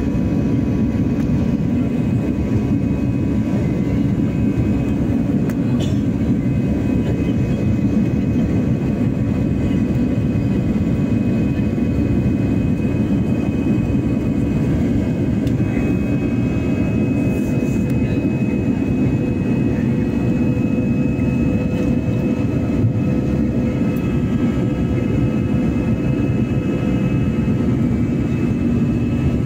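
Steady in-cabin drone of an Airbus A320 in flight during climb-out: engine and airflow noise through the fuselage, a low rumble with a few faint steady whining tones above it.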